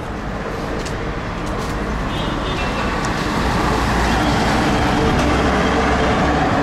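Road traffic with a heavy tanker truck's engine passing along the street, growing louder about halfway through and staying loud.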